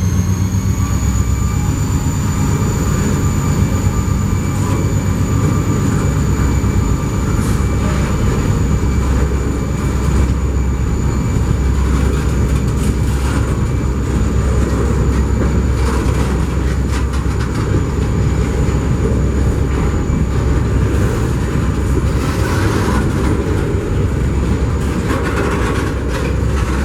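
A New England Central Railroad train rolling past. There is a heavy low rumble, scattered clicks and knocks from the wheels on the rails, and a thin high whine that climbs slightly in the first couple of seconds and then holds steady.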